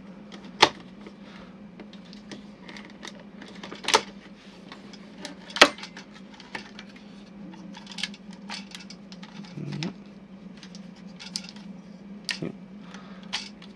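Plastic joints and parts of a Wizardragon action-figure toy clicking and clacking as it is folded by hand into its kick form. The clicks are scattered and irregular, with louder snaps about half a second, four seconds and five and a half seconds in.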